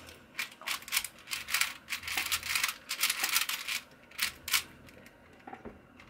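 A 4x4 Rubik's cube being turned quickly through an algorithm: a fast run of plastic clicks and clacks as its layers snap round, which stops about four and a half seconds in.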